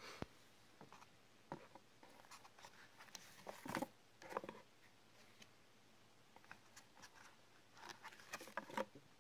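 Faint rustling and light tapping of paper booklets and cardboard being handled in a white box, in two short clusters, one in the middle and one near the end.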